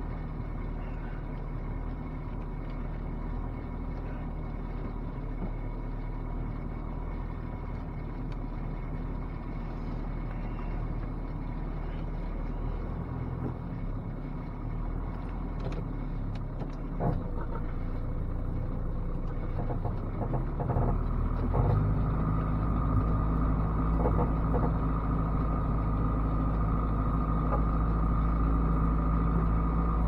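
1987 Dodge Raider's engine running steadily, heard from inside the cab. A few clicks and knocks come in the middle, then about 21 seconds in the engine speeds up and stays louder and higher as the truck pulls off.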